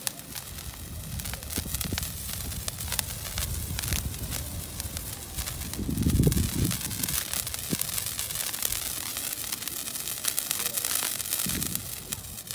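Handheld spark-spraying fireworks hissing steadily as they shower sparks, with many sharp crackles, and a brief low rumble about six seconds in.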